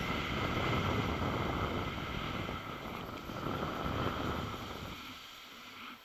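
Wind rushing and buffeting over the microphone of a skier going downhill, with the hiss of skis running through snow; it dies down near the end as the skier slows.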